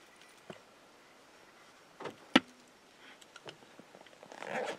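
A hunter handling gear and moving in dry brush: small ticks and rustles, one sharp snap-like click about halfway through, and a brief burst of rustling near the end.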